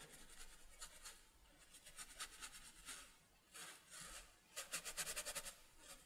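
Stiff flat bristle brush scrubbing watercolour paper to lift paint: faint scratchy strokes, a few separate ones, then a quick run of short back-and-forth strokes near the end.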